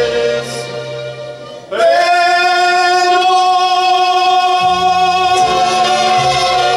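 A man singing live into a microphone over backing music: after a brief lull, his voice slides up into one long held note about two seconds in, and a bass part comes in about halfway.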